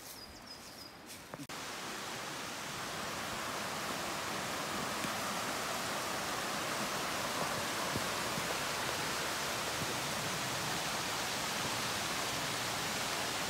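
Steady rush of water from a rocky mountain stream and a small man-made waterfall spilling down a concrete wall. It starts abruptly about a second and a half in and grows a little louder over the next few seconds, then holds.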